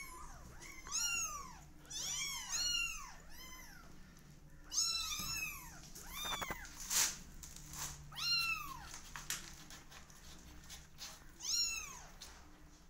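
Three-week-old kittens mewing: a string of short, high-pitched mews, each rising and then falling in pitch, about ten in all. A brief scratchy noise comes about seven seconds in.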